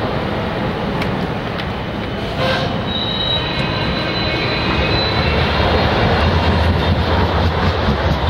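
Tram running on street rails, its steel wheels squealing in a thin high whine that starts about three seconds in, over a low rumble that grows louder in the second half.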